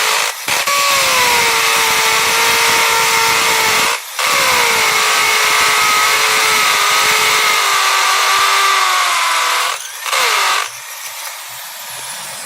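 Electric drill running at full speed with a steady whine. The trigger is let off briefly three times, the pitch sagging and then climbing back, and near the end it is released and the motor winds down.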